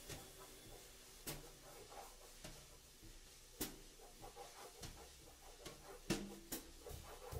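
Faint taps and strokes of a graphite crayon on a large sheet of drawing paper on an easel. About eight sharp ticks come at uneven intervals, the loudest a little after six seconds in.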